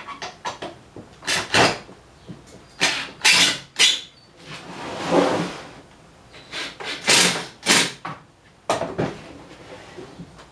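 Wooden pieces being handled, with a run of knocks, clatters and short scraping slides of wood on wood, and one longer scrape about halfway through.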